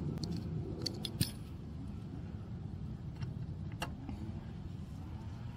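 Light metallic clinks and jingling of small hand tools, a set of hex keys being handled to pick out a size: a quick run of sharp clicks in the first second and a half, then two more a few seconds in.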